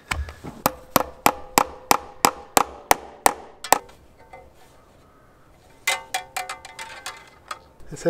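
A steady run of sharp metallic taps with a ringing tone, about three a second, stopping after nearly four seconds, as a wire hanger is worked onto a log nest box. A quicker, lighter cluster of clicks follows about six seconds in.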